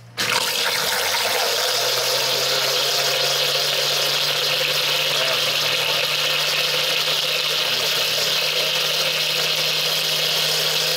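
Countertop blender switched on and running steadily, puréeing peeled tomatoes and garlic into sauce. The motor starts suddenly right at the beginning and then holds one constant whirring hum.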